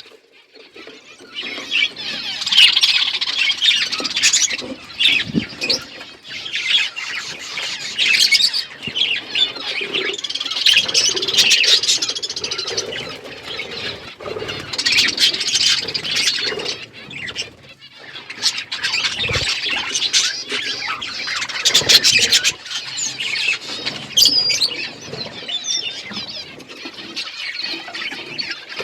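A flock of budgerigars chattering and chirping continuously, many birds calling over one another in dense, high warbling chatter.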